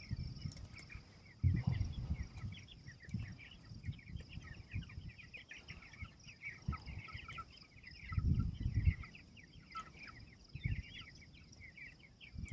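A flock of young chickens peeping, with many short high calls overlapping throughout. Above them runs a steady insect drone, and below them come irregular low rumbles and thumps, the loudest about eight seconds in.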